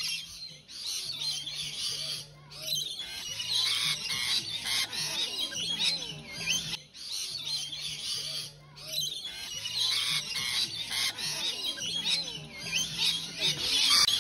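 A flock of rainbow lorikeets screeching and chattering, many calls overlapping, cut off abruptly a few times.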